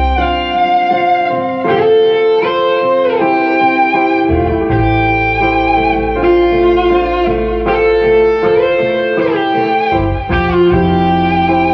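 Live instrumental rock. A lead electric guitar plays a sustained melody with sliding and bending notes over held keyboard chords and low bass notes.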